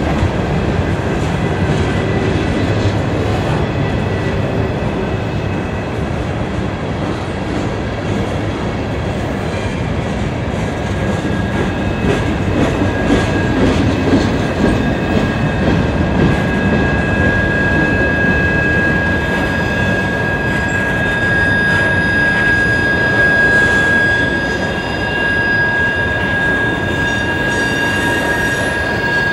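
Loaded freight cars rolling past on a curve: a steady rumble of steel wheels on rail. From about halfway through, a high, steady wheel squeal rises over it and holds to the end, the sound of wheel flanges grinding against the rail through the curve.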